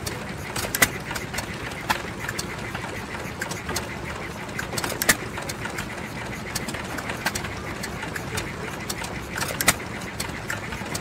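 John Deere single-cylinder hit-and-miss stationary engine running, with occasional sharper firing bangs a few seconds apart amid steady lighter ticking.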